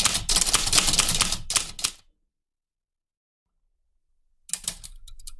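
Old typewriter being typed on: rapid, uneven keystrike clicks that stop about two seconds in. After a dead gap, fainter keystrikes start again near the end.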